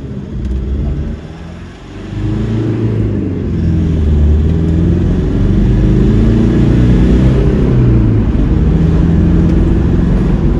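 Toyota 1KD-FTV four-cylinder turbodiesel in a Hilux pulling under acceleration, heard from inside the cab. It grows much louder about two seconds in, and the engine note rises and drops as the revs change.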